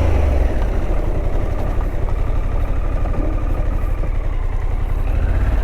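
Harley-Davidson Pan America's V-twin engine running during a quick-stop brake drill; its low note drops about half a second in and comes back up near the end.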